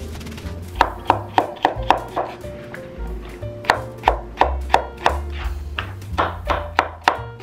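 Chef's knife chopping carrots on a wooden cutting board: sharp knocks in two runs of quick strokes, about three a second, over background music with a steady bass line.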